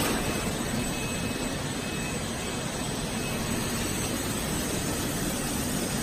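Plastic hose extrusion line running: a steady whir and hiss of its electric motors and machinery, with a faint high whine coming and going in the first half.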